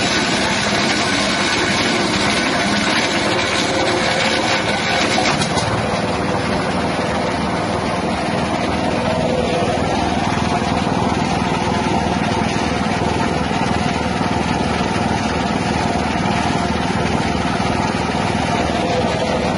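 Small 6.5 hp petrol engine running an acacia bark shredder steadily. About five and a half seconds in, the higher, hissing part of the sound drops away and the machine runs on evenly.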